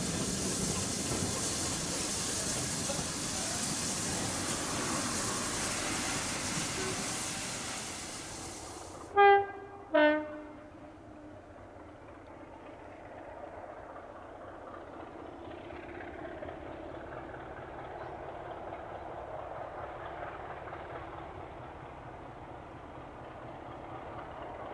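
Class 33 diesel locomotive: about nine seconds of loud train running noise, then two short blasts of its two-tone horn about a second apart, a higher note followed by a lower one. After the horn the train is heard as a quieter steady rumble.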